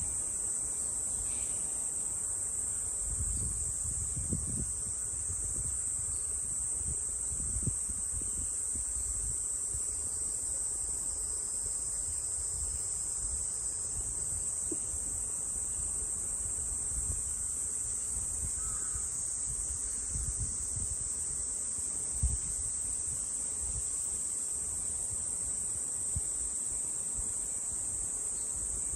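A steady, high-pitched chorus of insects that runs unbroken, over a low rumble with a few short, soft knocks.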